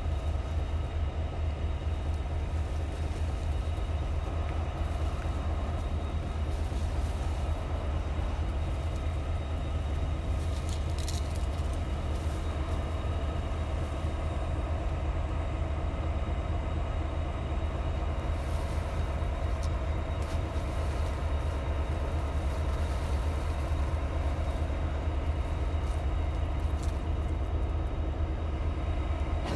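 Ex-Conrail CSX diesel locomotives idling steadily: a constant low engine drone with a steady hum above it, and no change in speed.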